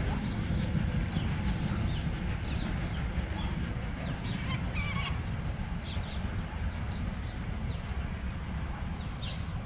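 Steam-hauled train pulling away into the distance, a low rumble that fades slowly, with birds chirping in short, quick calls throughout.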